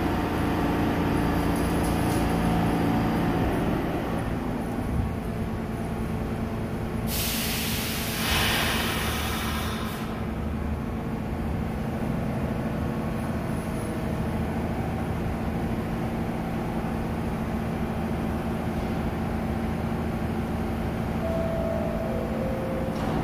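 New York City subway train at a station platform with a steady low electrical hum, and a loud hiss of released air starting about seven seconds in and lasting about three seconds.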